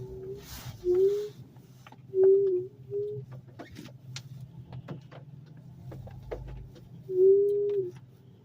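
Rear wheel brake squealing in short, moaning tones, about five of them, each a fraction of a second long and the longest a little past seven seconds in, over a steady low hum from the car.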